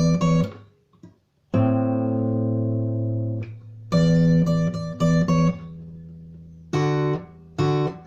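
Acoustic guitar strumming chords in short groups separated by brief pauses. A chord is left ringing out for about two seconds early on.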